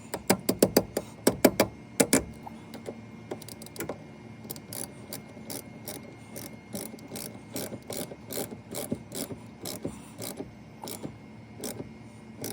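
Ratchet wrench clicking as a battery terminal clamp is tightened back onto its post. A fast, loud run of clicks in the first two seconds is followed by steadier clicking, a few clicks a second.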